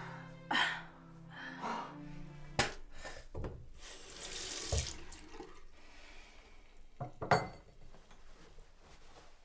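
Water running from a bathroom tap into a washbasin, a hand moving in the stream, heard after soft music with breathy laughter cuts off about two and a half seconds in. Two short, sharp knocks come about seven seconds in, the second the loudest sound.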